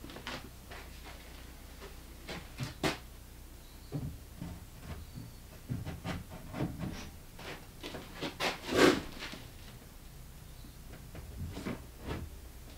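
White furniture-board cabinet panels knocking and scraping as they are handled and stood against each other on a workbench: scattered light knocks, the loudest about nine seconds in.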